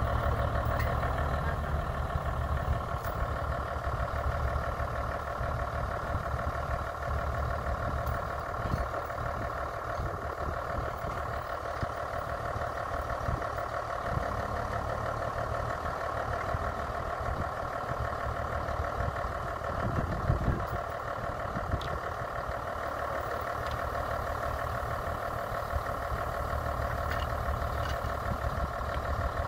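Heavy diesel engine idling steadily, an unbroken engine drone with a low rumble underneath.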